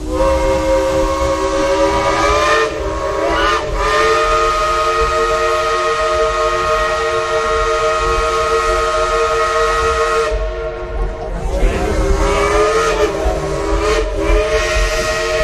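Steam locomotive's whistle blown in one long blast, sounding several notes together as a chord over a hiss of steam. The blast eases and its pitch slides briefly twice, about three seconds in and again around eleven seconds.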